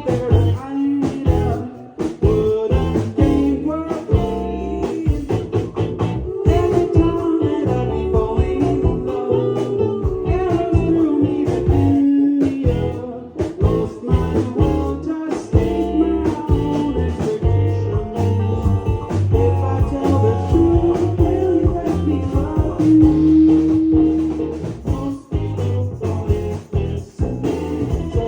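A live band playing a song: drums, guitar and bass with a lead vocal singing over them.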